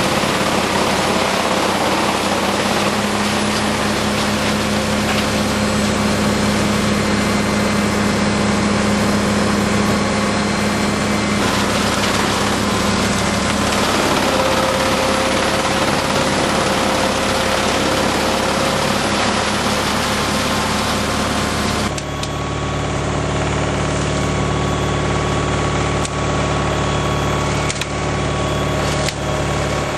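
PTO-driven Dutchdragon EC9045 wood chipper running at working speed off its tractor, chipping branches, with the tractor engine under steady load. The sound changes abruptly about 22 seconds in.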